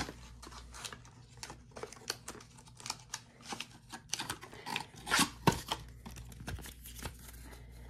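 Handling of a cardboard Pokémon trading card game box and its paper contents: irregular small clicks and rustles, with a louder cluster about five seconds in.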